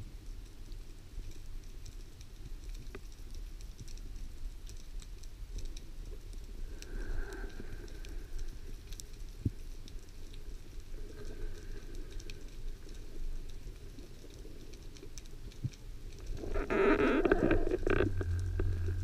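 Underwater ambience picked up by a camera in a waterproof housing: a low, muffled water rumble with faint clicks and crackles. About three seconds before the end, a louder, rougher sound comes in.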